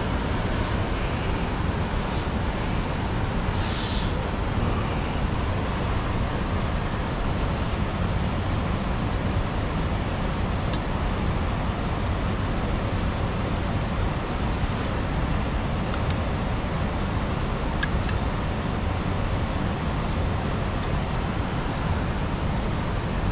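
Steady rushing of a fast river, an even, unbroken noise heaviest in the low range, with a few faint clicks over it.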